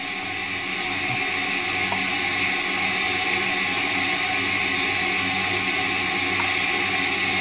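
Semitool ST-240 spin rinse dryer in its dry cycle, rotor spinning at about 2,000 RPM: a steady hiss that grows a little louder over the first two seconds, then holds even. It runs smoothly, with no knocking or vibration.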